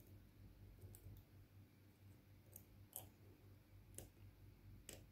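Faint, scattered clicks of a pick and tension tool working in a rusty pin-tumbler lock cylinder, about five ticks as the pins are set again under renewed tension.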